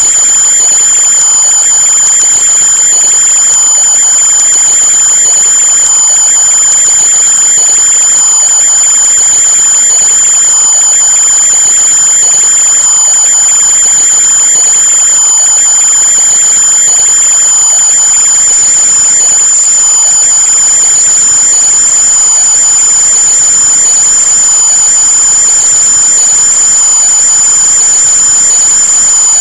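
A loud, steady high-pitched whine over a hiss, unchanging throughout.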